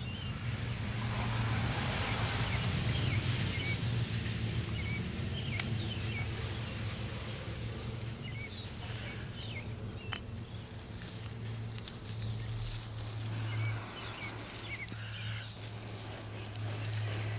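A chert flake struck against a steel file, giving a couple of sharp scraping clicks as it throws sparks into steel wool. Under it run a steady low hum, a rushing hiss in the first few seconds, and scattered bird chirps.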